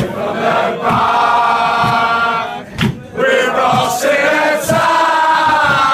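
A crowd of male football supporters singing a chant together in loud unison, two long held phrases with a short break about three seconds in, with a few sharp knocks among the singing.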